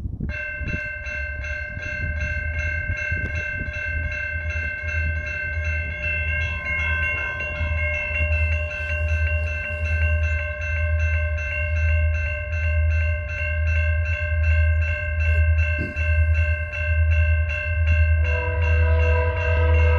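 Railroad grade-crossing bell ringing rapidly and steadily, about four strokes a second. Near the end an approaching locomotive's air horn joins with a sustained chord.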